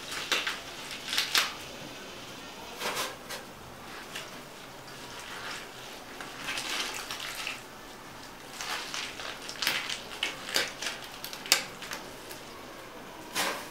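Handfuls of wet amaranth greens being squeezed, rubbed and lifted by hand in a stainless steel bowl while they are washed: irregular crunching and rustling of leaves in scattered short bursts.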